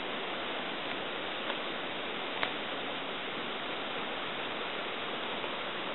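Steady even hiss, with two faint light clicks about one and a half and two and a half seconds in as a porcini is pulled up out of the needle-covered forest floor.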